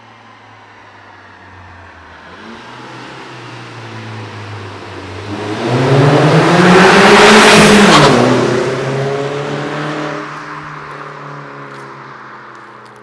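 Seat Leon FR 1.4 TSI turbocharged four-cylinder petrol engine accelerating past, heard through its stock exhaust with the front silencer (resonator) removed. The engine note grows louder and rises in pitch as the car approaches, is loudest about seven seconds in, then drops in pitch and fades as it pulls away.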